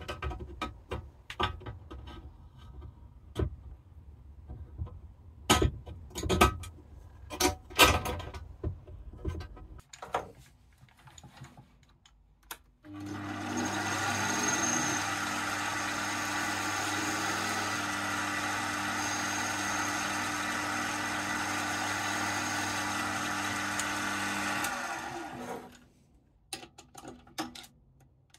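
A series of sharp metal clicks and knocks as the aluminium spinner-target frame is handled. Then, a little under halfway through, an Axminster bench lathe starts up abruptly, runs steadily with a hum and a hiss for about twelve seconds, and winds down. A few light clicks follow as parts are handled at the chuck.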